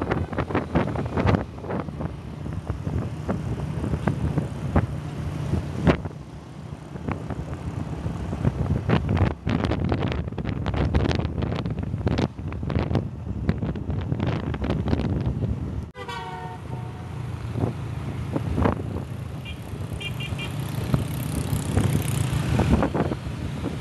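Ride on a motor scooter in traffic: the engine hums steadily under wind buffeting on the microphone, with short horn toots from traffic now and then.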